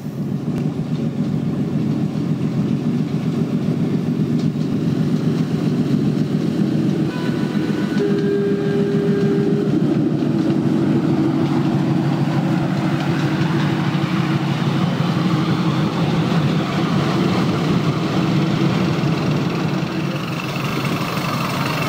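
Miniature ride-on locomotive running along a garden railway track with a steady engine rumble. A brief higher tone comes about eight seconds in.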